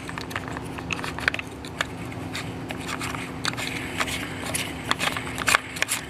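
Irregular light clicks and scrapes of plastic and metal trimmer parts being handled and turned by hand, over a steady low hum.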